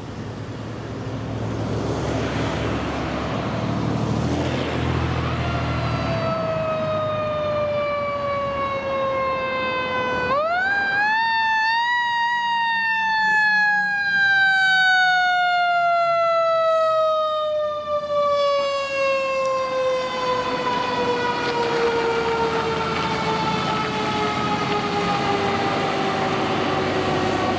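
Fire engine siren sounding as the truck approaches and passes, over the truck's engine rumble. Its pitch falls slowly, jumps sharply back up about ten seconds in, then slides down again over the rest of the time.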